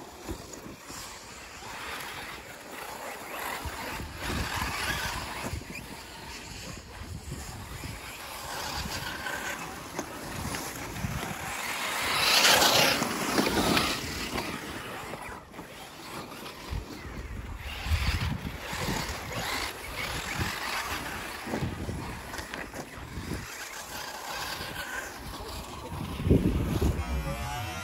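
Electric RC cars driving over a loose dirt track, their motors and tyres on the dirt heard as a steady noisy rush that grows loudest as a car passes close about twelve seconds in.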